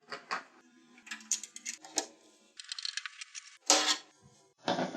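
Small metal parts clinking and clicking while a PC is assembled: several sharp clicks, a short rattle about three seconds in, and a louder knock near the end.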